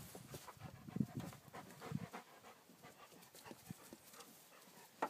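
Puppies play-fighting: short low growls and grunts with panting, loudest about a second in, amid small scratches and taps of claws on the wooden boards.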